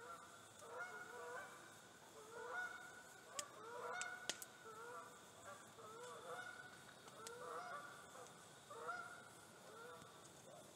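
A flock of geese honking repeatedly, the calls coming close together and overlapping, faint and distant. A few sharp crackles from a campfire.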